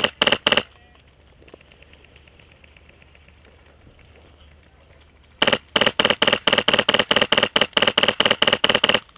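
Airsoft rifle with a PolarStar compressed-air (HPA) engine firing right next to the microphone: three quick shots at the start. Then, from about five and a half seconds in until just before the end, it fires a long string of about twenty rapid shots, roughly five a second.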